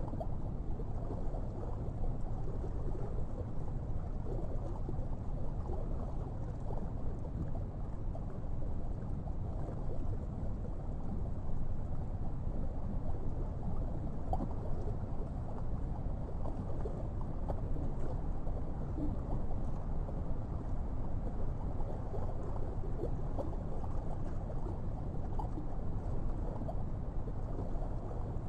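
Steady low underwater rumble of moving water, with faint scattered ticks.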